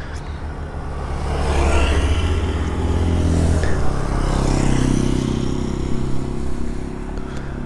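A motor vehicle's engine going past, its low steady drone swelling about a second in and fading toward the end.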